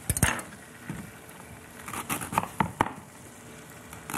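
Chef's knife cutting into a wedge of raw red cabbage on a plastic cutting board: crisp crunching cuts and knife taps, two at the start, one about a second in, and several quick ones about two to three seconds in.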